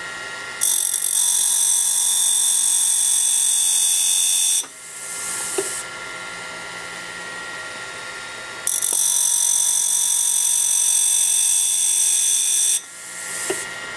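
Motor-driven grinding wheel running with a steady hum while the flute of an end mill is passed across it twice, each pass about four seconds of loud, high-pitched grinding that stops suddenly as the tool comes off the wheel. This is the grinding of the primary relief angle on the flute. A light click follows each pass.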